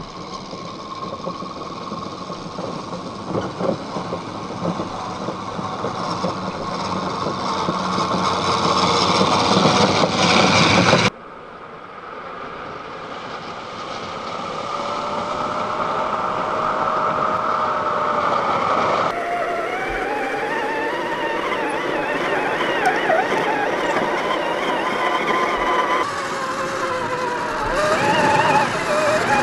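Electric motors and gearboxes of 1/10-scale RC crawler trucks whining as they drive over stones and dirt, the whine rising and falling in pitch with the throttle. It grows louder over the first ten seconds and breaks off abruptly about eleven seconds in, then carries on in the same way.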